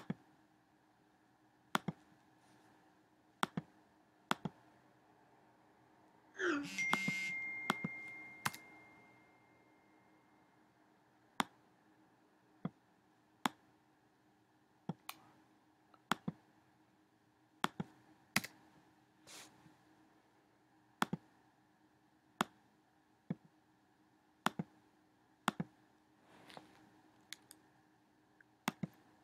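Computer mouse clicks, single sharp clicks every second or so, over a faint steady hum. About six and a half seconds in, a louder sound with a ringing tone fades out over a few seconds.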